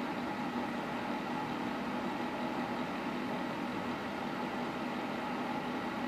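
Small fan inside a 110-volt quartz tower space heater running steadily: an even whir with a faint hum in it.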